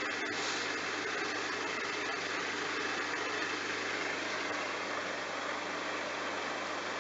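Bosch front-loading washing machine running a load of towels: a steady motor hum under an even whooshing noise, with no thumps or changes in speed.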